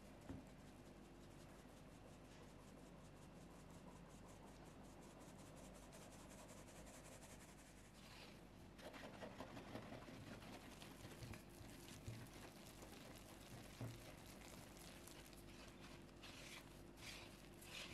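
Faint quick, even tapping of a fine-mesh metal sieve as flour is sifted through it. From about eight seconds in, a wire whisk scrapes through flour and wet dough in a bamboo bowl, with a few small knocks against the bowl.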